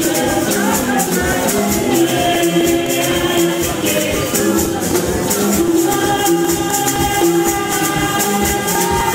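Music with voices singing, a hand-held frame drum being beaten and a steady rattling shaker rhythm.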